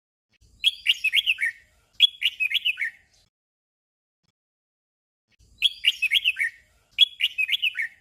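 Red-whiskered bulbul singing its short 'doubled' song: a quick phrase of several clear, sharply pitched notes, sung twice back to back. After a pause of about two and a half seconds, the doubled phrase comes again.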